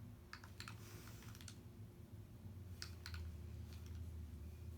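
Faint, light clicks in small clusters, over a steady low hum.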